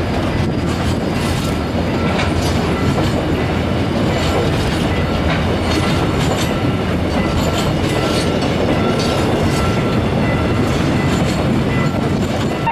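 Korail freight train of empty flat wagons rolling past at a level crossing: a steady rumble with wheels clicking over the rail joints. The crossing's warning bell rings faintly and repeatedly behind it.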